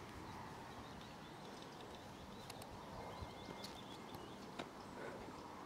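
Quiet outdoor ambience: faint bird chirps, light wind on the microphone and a few small clicks.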